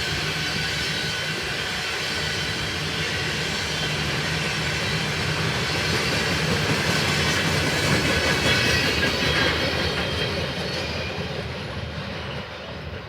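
CSX rail train (a freight train hauling long welded rail) rolling past, a steady noise of wheels on the track with some thin high tones. It loudens toward the middle, then fades and dulls over the last few seconds as the train moves away.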